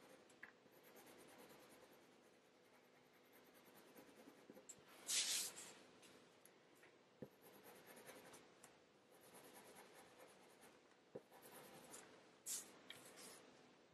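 Faint strokes of a Faber-Castell Polychromos coloured pencil scratching on hot-press watercolour paper, with a louder rustle about five seconds in, a smaller one near the end, and a couple of light clicks.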